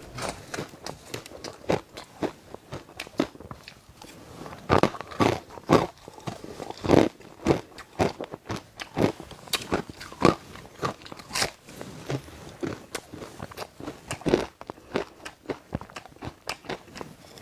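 Ice being bitten and chewed close to the microphone: a run of irregular, sharp crunches, several a second, with some louder bites near the middle.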